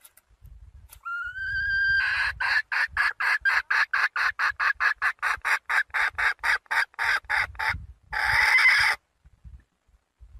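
Red junglefowl hen calling: a rising note, then a fast run of clucks at about four to five a second, ending in one harsher drawn-out note. It is the hen's call to a rooster, used as a lure to draw in wild junglefowl males.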